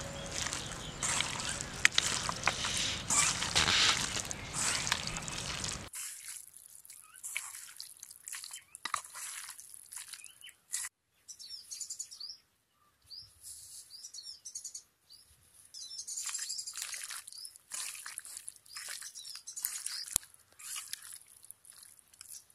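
Hands squelching raw chicken pieces through a wet marinade in a steel bowl, a dense, noisy mixing sound with clicks, which cuts off abruptly about six seconds in. After that it is quieter, with small birds chirping now and then and occasional soft handling sounds.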